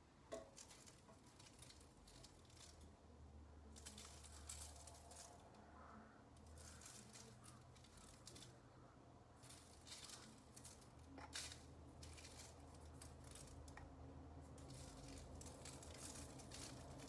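Pinches of salt sprinkled by hand onto halved pointed peppers, the grains pattering down in short bursts of faint crackle, about six times, with fingers rustling in the salt jar between them.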